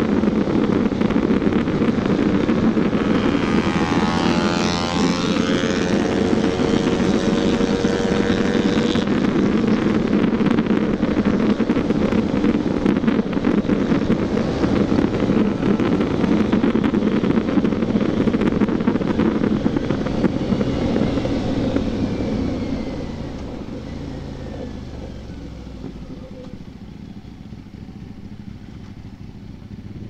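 Motorcycle riding at speed, engine and wind rush on the microphone. A little over two-thirds through, the engine comes off the throttle and the sound drops away as the bike slows, staying quieter to the end.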